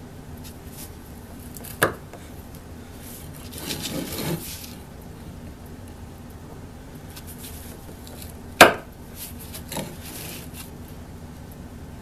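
Steel carving gouge pressed and chopped into the wooden hand-saw handle, cutting a recess around a bolt hole: a sharp click about two seconds in and a louder one past the middle, followed by a lighter one, with short bouts of the blade scraping across the wood.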